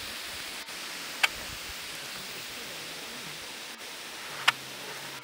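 Steady outdoor hiss, broken by two sharp clicks about three seconds apart.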